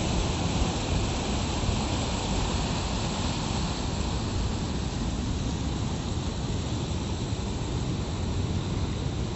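Rough sea surf washing and breaking around shoreline rocks: a steady rushing noise with a heavy low rumble.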